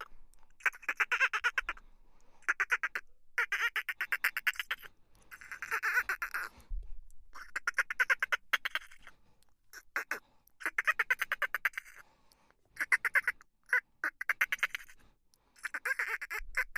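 About a dozen short bursts of rapid rattling, croak-like animal calls, each up to about a second and a half long, with short pauses between them. They are presented as the strange voice of an octopus.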